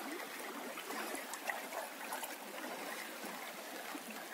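River water running, a steady rush with a few faint small splashes or ticks.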